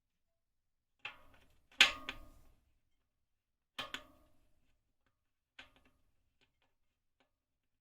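Spoke key and pliers clicking and clinking on a bicycle spoke and nipple while the new spoke is being tightened: a few short clusters of sharp clicks, the loudest about two seconds in, then faint ticks near the end.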